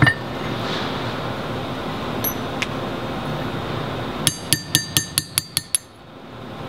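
Metal clinking as the powder fill plug of a magnetic particle brake's stator is knocked out with a punch and hammer: a sharp strike at the start, then about eight quick ringing clinks that get softer and closer together.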